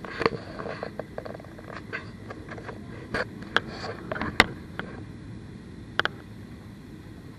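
Airliner cabin noise: a steady low rumble with a series of irregular short clicks and knocks, the sharpest about four and a half seconds in and another near six seconds.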